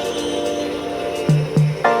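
Background music: sustained chords with two short deep bass notes near the end, then a change of chord.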